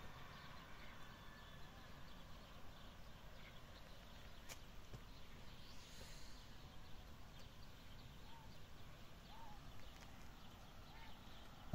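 Faint outdoor quiet with a single click about four seconds in and three soft, short animal calls about a second apart near the end.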